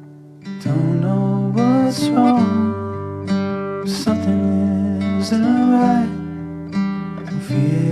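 Background song with strummed acoustic guitar and a melody line over it, resuming about half a second in after a fading chord.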